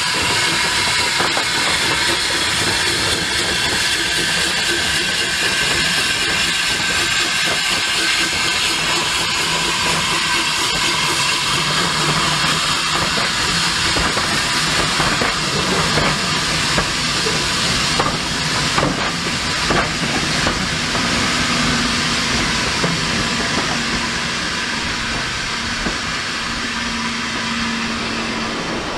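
Avonside 0-4-0ST saddle tank locomotive 1340 'Trojan' hissing steam steadily as it draws a coach past, with a few sharp clicks from the train in the middle.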